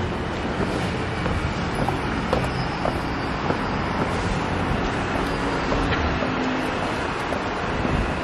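Steady hum of city traffic noise, with a few light taps of footsteps on stone steps.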